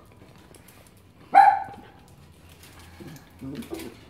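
Miniature schnauzer puppy giving one short, sharp bark about a second in, with fainter small sounds near the end.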